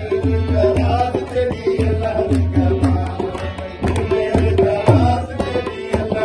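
Male voice singing a Sindhi song to a tabla beat, with hand claps among the drum strokes.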